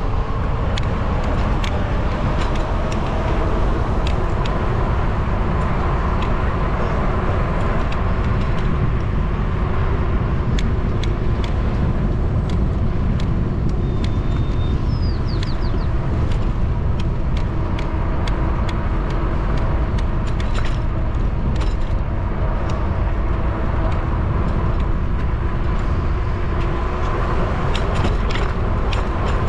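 Steady rumble of wind and rolling noise on a bike-mounted camera during a bicycle ride, with a faint even hum and frequent small clicks and rattles from bumps in the pavement. A brief chirp about halfway through.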